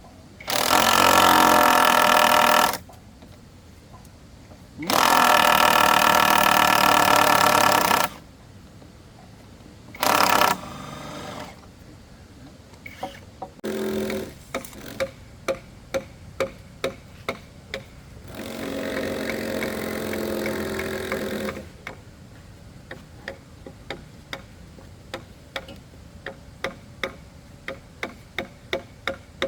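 A handheld power tool working wood runs in bursts: two loud runs of two to three seconds each near the start, a brief burst about ten seconds in, and a quieter run near twenty seconds. From about fourteen seconds on, sharp taps come about twice a second.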